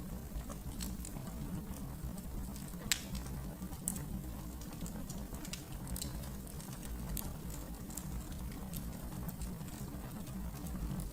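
Wood fire in a fireplace crackling: scattered sharp pops and ticks over a steady low rumble, with the loudest pops about three and four seconds in.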